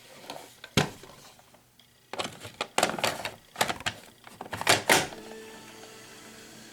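Mechanical clicks and knocks: one sharp click about a second in, then a quick irregular run of them from about two to five seconds in, followed by a faint steady hum.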